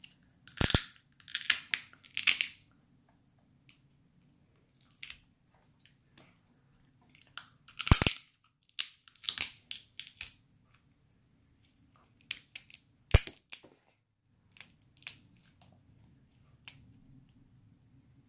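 Crab leg shells cracking and snapping apart by hand, a series of sharp, irregular cracks with quiet gaps between; the loudest crack comes about eight seconds in.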